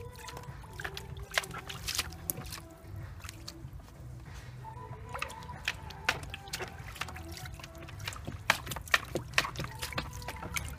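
Samoyed dog pawing and splashing in shallow water in a plastic paddling pool: irregular slaps and sloshes, coming thicker near the end.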